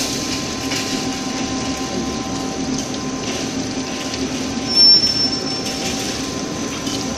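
Aluminium alloy rod rolling and milling machine running with a steady hum and a few constant whining tones, with a brief high-pitched squeal about five seconds in.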